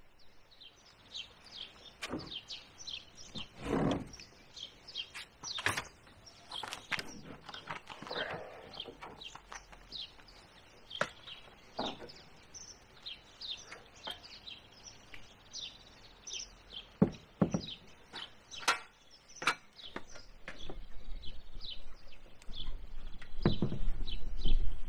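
Songbirds chirping throughout, with scattered knocks and thuds as a plastic kayak is handled and lifted onto a van's roof rack from a stepladder.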